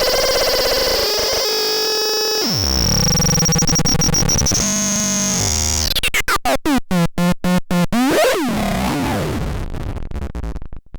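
Synthesized electronic sound effects from a MARADAPAX C 3066 sound demo. Buzzy held tones give way to a falling sweep and a high whine. About six seconds in, the sound stutters rapidly on and off for a couple of seconds, then ends in warbling tones that cut off near the end.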